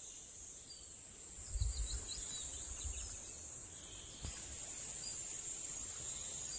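Steady high-pitched chorus of summer insects buzzing in a field, with a few faint bird chirps and some low bumps about a second and a half to three seconds in.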